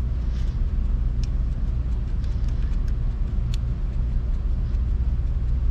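Steady low background rumble, with a few faint light clicks of a bolt being threaded in by hand.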